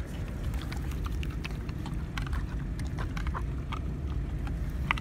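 Wild horses close beside a car window: scattered short clicks and crunches, from hooves shifting on gravel and apples being chewed, over a steady low rumble.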